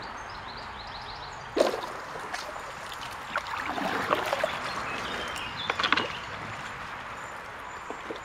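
A loaded Canadian open canoe being pushed off and paddled away: a sharp knock about a second and a half in, then a run of paddle strokes splashing and water sloshing against the hull, over the steady rush of the river.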